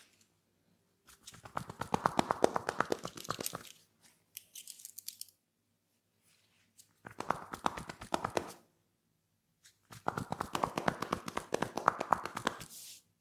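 Hands rubbing and scrunching oiled hair against the scalp in a head massage, making a dense crackling. It comes in three bursts of one to three seconds each, with a shorter, thinner one after the first.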